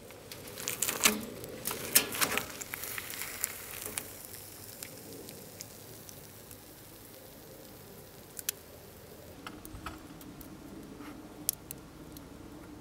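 Hot melted plastic from a torch-melted remote control crackling and popping while a gloved hand presses and stretches it. A burst of sharp pops comes in the first few seconds, then only scattered fainter ones.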